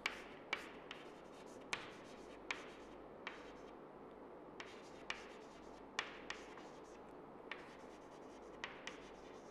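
Chalk writing on a blackboard: faint, sharp taps and short scratches at irregular intervals as letters are formed by hand.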